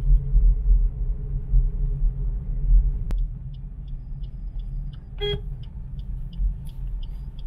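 Steady low rumble of a car driving along a road, heard from inside, with a single sharp click about three seconds in and a brief car-horn toot a little after five seconds. Faint regular ticking, roughly three a second, runs through the second half.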